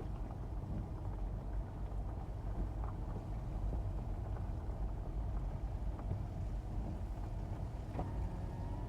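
Steady low rumble of a car being driven, with engine and road noise heard from inside the cabin and a few faint ticks.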